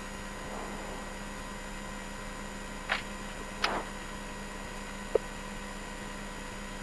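Steady electrical hum inside a rally car's cabin, with two short clicks about three seconds in and a brief high blip about five seconds in.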